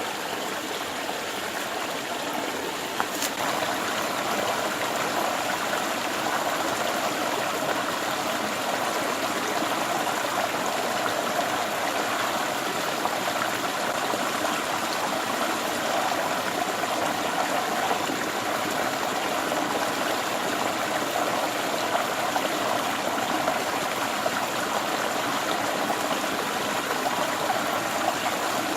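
Steady rush of flowing stream water, with one short click about three seconds in.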